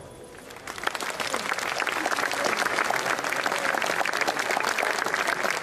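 Concert audience applauding as a live violin piece ends. The clapping swells up about half a second in and then holds steady and dense.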